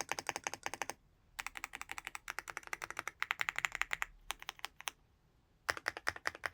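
Space bar of a Leobog Hi75C Pro aluminium mechanical keyboard being pressed rapidly over and over, in runs of quick, even clacks at about ten a second. The runs break off briefly about a second in and for about a second near the end.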